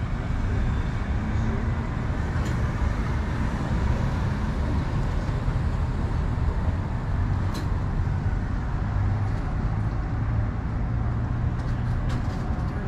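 Steady rumble of road traffic, heaviest in the low end, with a few faint clicks.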